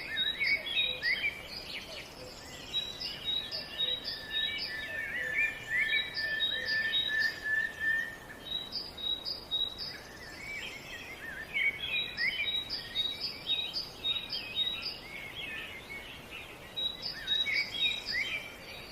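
Songbirds singing, several overlapping songs of rapid high chirps and trills that come in phrases of a few seconds with short lulls between them. A steadier whistled note runs under one phrase about five seconds in.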